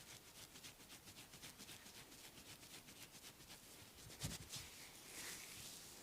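Faint hand massage strokes on skin, a quick even rhythm of about five a second, then a louder thump about four seconds in and a short swish just after.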